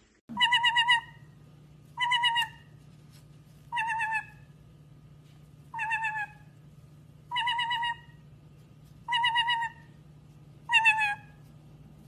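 White-bellied caique giving a warbling, trilled call seven times, each call under a second long and repeated about every second and a half to two seconds, over a faint steady low hum.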